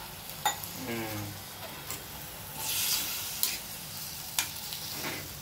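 Spiny gourd and tomato curry sizzling in a steel kadai, its little water hissing in the hot pan, while a spatula stirs and scrapes it. A few sharp metal clicks come as the spatula knocks the pan.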